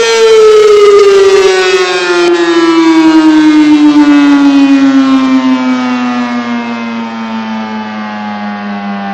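ACA P-15 siren winding down: its steady tone begins to fall at the start and sinks slowly and evenly in pitch throughout, growing gradually quieter.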